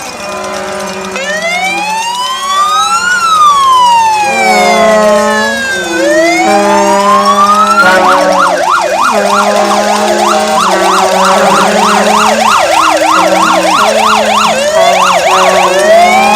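Emergency vehicle sirens sounding together in a noise parade: a slow rising-and-falling wail, switching about eight seconds in to a fast yelp of roughly three sweeps a second, over steady lower tones that step between pitches. The sound grows louder over the first few seconds.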